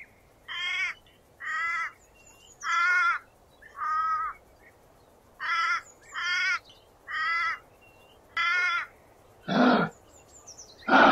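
A crow cawing over and over: about eight harsh, drawn-out caws, roughly a second apart. Near the end come two louder, deeper rasping grunts.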